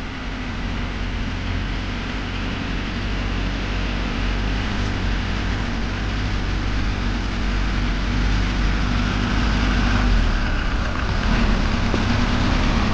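A motor-vehicle engine running steadily with a deep rumble, getting gradually louder.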